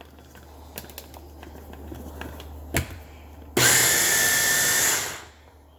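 Electric blender run in one short pulse of about a second and a half, chopping onions into very small pieces. A single knock comes just before it.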